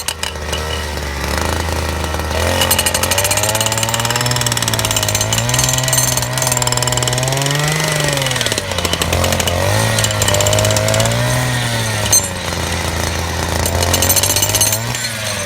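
Jackhammer running and hammering with a dense, rapid clatter, its pitch rising and falling several times as it works. A brief loud knock about twelve seconds in.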